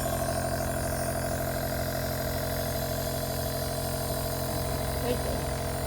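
Compressor nebulizer running with a steady, unchanging hum.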